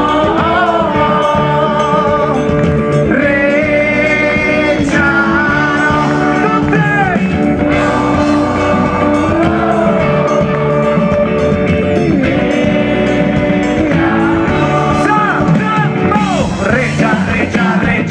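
A rock band playing live and loud through a concert PA, with a melody line held over bass and guitars, recorded from within the crowd.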